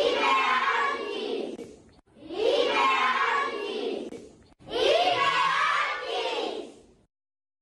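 A class of young children chanting short phrases together in unison, three times, each phrase about two seconds long; the sound cuts off abruptly near the end.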